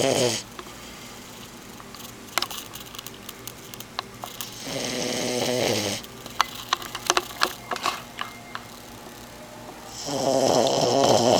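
Sleeping 4-month-old French Bulldog puppy snoring, with a long snore lasting over a second about every five to six seconds. Between the snores come a few short clicks.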